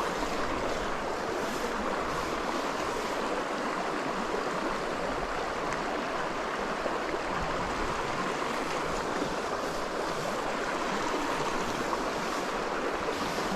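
A small mountain creek running over rocks, a steady rush of water.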